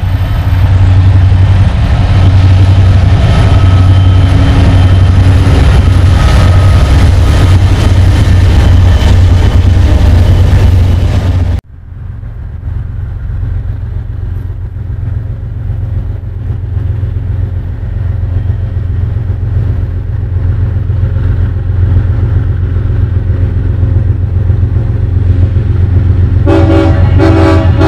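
Freight train rumbling loudly and steadily, cut off abruptly about eleven seconds in. A Canadian Pacific diesel freight then approaches with a low rumble that slowly builds, and near the end its locomotive horn sounds in short blasts.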